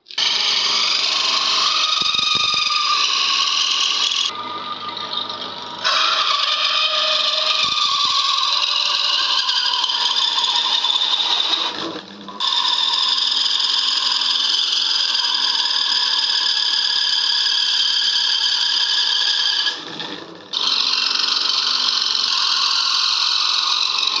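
Motor-driven hole saw cutting into a wooden blank: a loud, steady scraping screech of the teeth in the wood, with a high ringing whine over it. It eases off for a couple of seconds near the start and breaks off briefly twice later.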